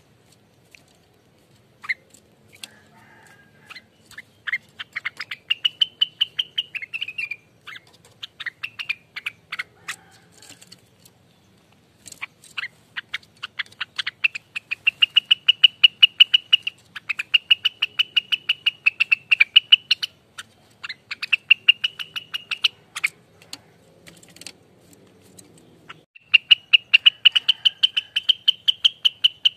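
Rengganis bird singing its rapid rattling 'ropelan' trill: runs of fast, evenly repeated notes lasting one to three seconds each, broken by short pauses.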